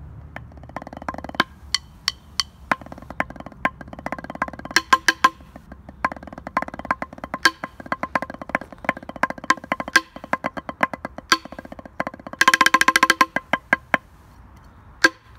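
Homemade wooden drumsticks, carved from branches, play a quick beat with fast rolls on a drumhead held on the lap. The strokes are sharp and clicky over a ringing tone. There is a dense roll a little before the end, then the playing stops.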